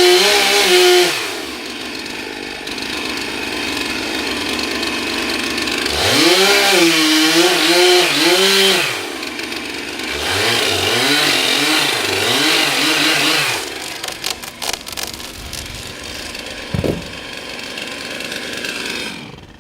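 Two-stroke chainsaw revving up and down in repeated bursts as it cuts a tree. After about thirteen seconds the saw stops and a series of sharp cracks follows, with a single thump a few seconds later.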